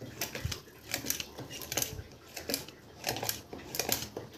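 Metal wire whisk clicking and scraping against a bowl as it stirs flour into ghee, in quick repeated strokes of about three clicks a second.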